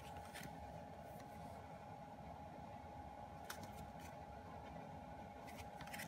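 Quiet room with a faint steady hum, broken by a few soft, brief taps and rustles of album photocards and packaging being handled.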